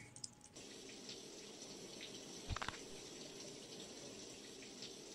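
Shower running, a faint, steady hiss of spraying water that starts about half a second in. A single soft knock comes about two and a half seconds in.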